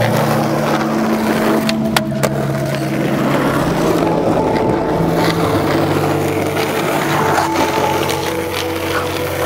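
Skateboard wheels rolling on rough asphalt, a loud steady rumble, with a few sharp clacks about two seconds in and again near the end.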